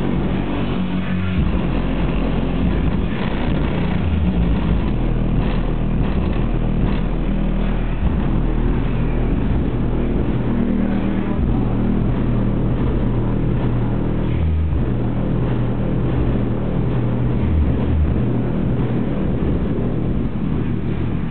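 Loud music played through a van's newly installed car audio system, heavy bass notes shifting in steps and dominating the sound.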